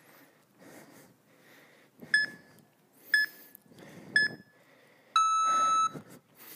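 Interval timer app on a tablet beeping a countdown: three short beeps a second apart, then one longer, lower beep a second later that marks the end of the rest and the start of the next work interval.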